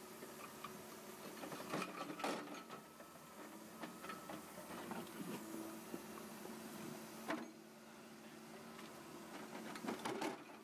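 Mini excavator running steadily while its bucket digs through wet soil, with a few sharp knocks and scrapes from the bucket, the clearest about two seconds in and just past seven seconds.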